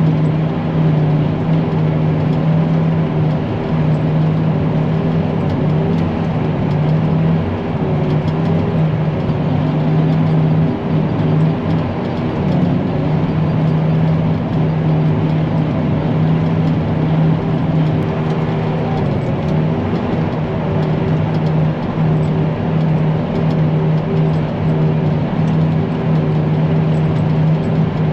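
Forage harvester running steadily while chopping hay: a constant heavy engine drone with a strong steady hum.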